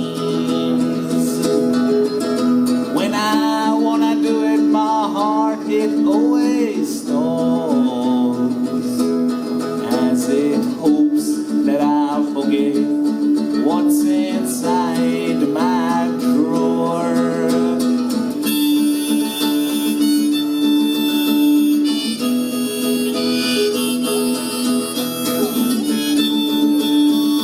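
Instrumental break: a harmonica plays a wavering, bending melody over a strummed acoustic string accompaniment, the strumming growing busier about two-thirds of the way through.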